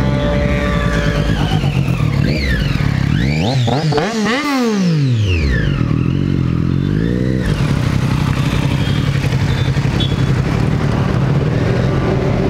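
Sport motorcycle engines at close range: about three seconds in, one bike goes by at speed, its engine note climbing and then dropping sharply as it passes. A shorter rise and fall in engine pitch follows, then a steadier engine note as the bikes ride off.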